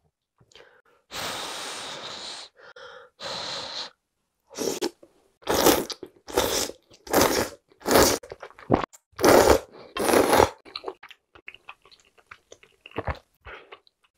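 Close-miked slurping of soft knife-cut noodles: a long slurp, then a run of short loud sucking pulls about every 0.7 seconds. Soft wet chewing with small clicks follows near the end.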